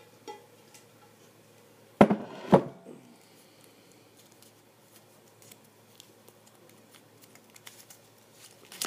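Two sharp knocks about half a second apart, then faint clicks and rustling of paper slips as numbers are drawn from a container.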